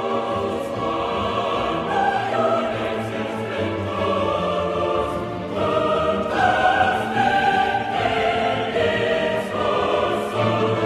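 Choral music: a choir singing slow, long held chords over a low sustained bass.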